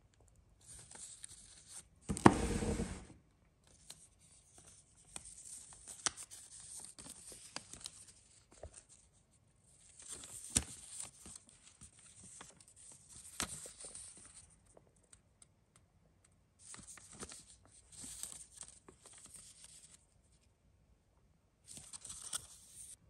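Close handling of a knitted cotton-polyester sweater and its care labels: fabric and label rustling in about six bursts of one to four seconds, with a louder scuff about two seconds in.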